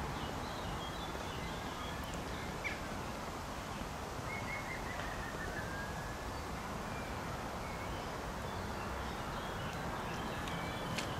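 Steady outdoor background noise with small birds chirping faintly now and then, and a single small click a little under three seconds in.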